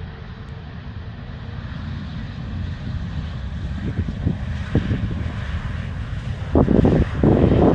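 Twin-engine jet airliner's engines on landing, the jet noise growing steadily louder and spreading higher toward the end. Wind buffets the microphone throughout, with strong gusts near the end.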